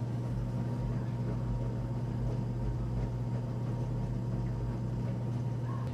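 Enxuta Luxo Soft washing machine running, its motor giving a steady low hum with a rumble underneath.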